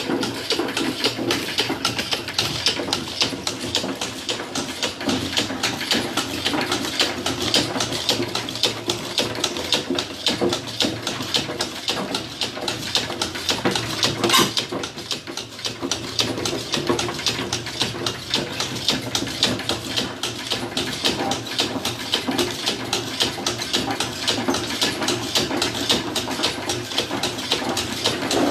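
Turmeric grinding machine running steadily with a rapid, even clatter, with one sharper knock about halfway through.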